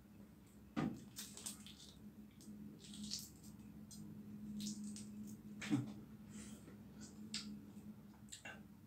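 Faint clicks and crackles of a balut egg's shell being picked off by fingers, a few small cracks every second or two, over a low steady hum.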